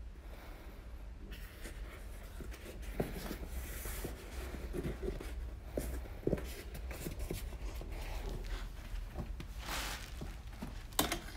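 Hands handling an inflatable Canada goose decoy: irregular scratchy rubbing against its body and neck, with small knocks and clicks as the neck is bent and moved.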